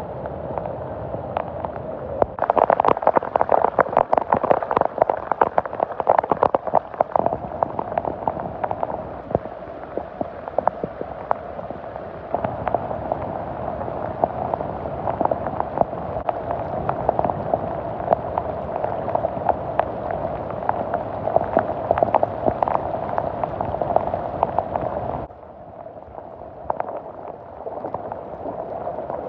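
Heavy rain pouring onto a flooded street, a dense patter of drops hitting standing water. It falls abruptly quieter near the end.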